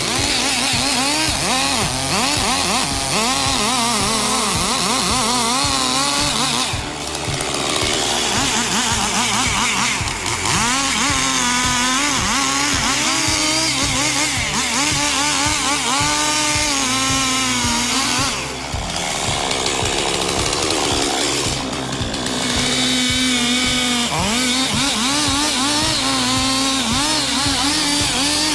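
Chainsaw running under load as it cuts through a tree, its engine pitch rising and falling as it works the cut. It eases off briefly a few times.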